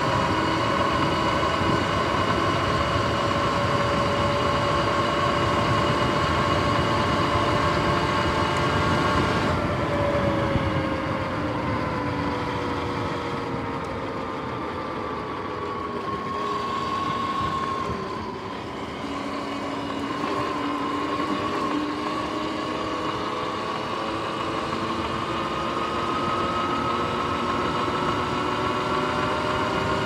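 Sur-Ron X electric dirt bike under way: a steady whine from its electric motor and chain drive over tyre and wind noise. About ten seconds in the whine falls in pitch and grows quieter as the bike slows, then rises again over the last ten seconds as it speeds back up.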